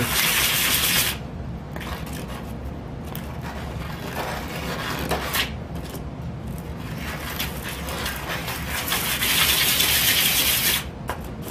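A cut-off ring of 1-inch PVC coupler rubbed round and round on a sheet of sandpaper, a steady gritty scraping as its cut edges are smoothed. It is louder in the first second and again in the last few seconds.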